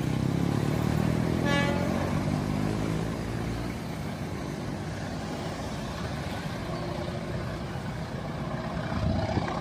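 Engine rumble of vehicles, loudest over the first few seconds, with one short horn toot about one and a half seconds in.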